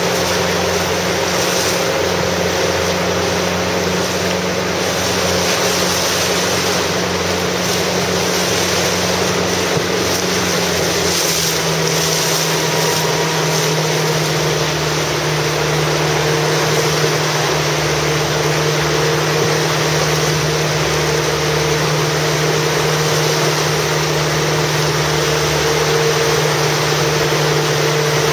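Small motorboat's engine running steadily, its note shifting a little about eleven seconds in, under a constant hiss of wind and water.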